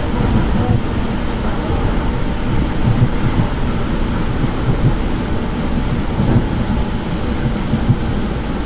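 Passenger train running, heard from inside the carriage: a steady low rumble with the uneven knocking of the wheels over the rails.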